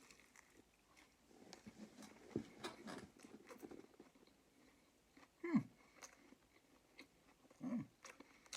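Close-up chewing of a fried chicken leg, with the crispy breading crunching in scattered crackles for the first few seconds. This is followed by two short falling 'mm' hums of approval, the loudest sounds.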